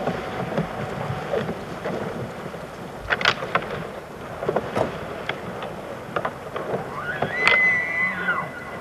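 Two bull elk fighting in the rut in a river: heavy splashing and churning water with several sharp antler clacks. Near the end a bull gives a high, whistling squeal.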